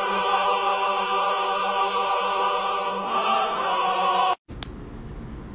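A dog howling along to held, operatic singing: a long sustained sung note with many voices. It cuts off sharply about four seconds in, leaving low room hiss.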